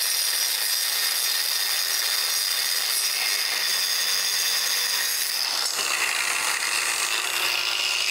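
Cordless angle grinder with a cut-off wheel cutting through metal square tubing held in a vise: a steady high-pitched whine, its pitch shifting about six seconds in.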